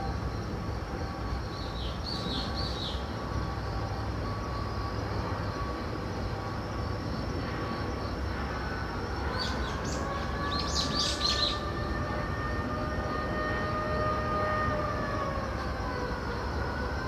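Steady mechanical drone with a low rumble and a few whining tones, which slide down in pitch near the end. Two short bursts of high chirps come in, about two seconds in and again around ten to eleven seconds in.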